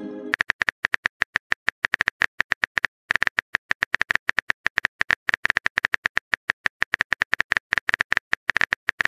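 Rapid phone-keyboard typing clicks from a texting app, about ten short taps a second, with a brief pause about three seconds in.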